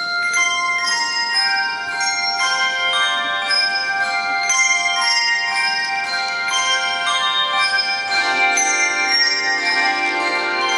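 Handbell ensemble playing a piece: many struck handbells, each note ringing on long and overlapping the next. The playing starts suddenly, and lower-pitched bells join about eight seconds in.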